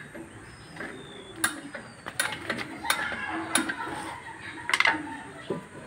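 Irregular metallic clicks and clinks of hand tools and parts on a Toyota Hilux's rear drum brake assembly as the brake shoes are worked on, with a louder cluster of clicks near the end.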